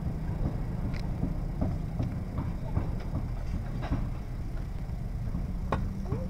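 Metal tongs clicking against shells as they are picked up and set on a grill: irregular light clicks and knocks over a steady low rumble.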